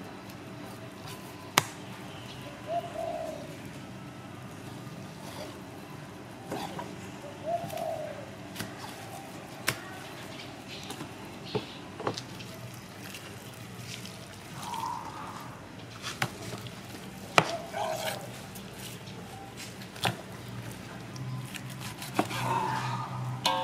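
Kitchen knife knocking and scraping on a plastic cutting board while raw meat is trimmed: scattered sharp clicks and taps every second or two over a low steady hum. A few short, soft bird calls sound in the background.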